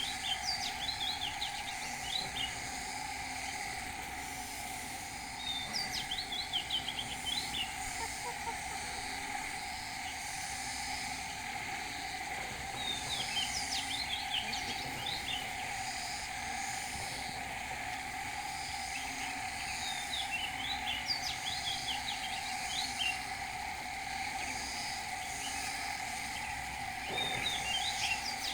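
Outdoor rural ambience: a steady insect drone with a bird singing short chirping phrases that return about every seven seconds.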